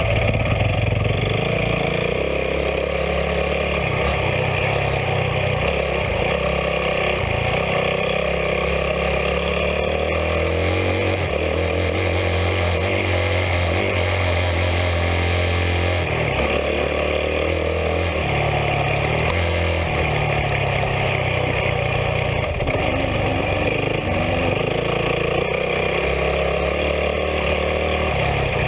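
Dirt bike engine running hard under race riding, its note repeatedly rising and dropping as it revs and changes gear. Heard close up from a bike-mounted camera, with wind noise over it.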